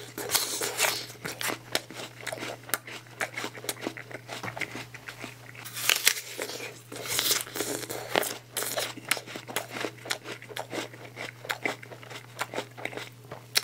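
Biting into a raw red apple and chewing it, with a dense, irregular run of wet crunches and crackles over a faint steady low hum.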